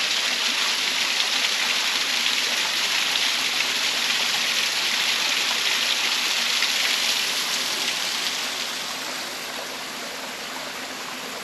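Small woodland waterfall, water splashing and rushing steadily, growing a little quieter over the last few seconds.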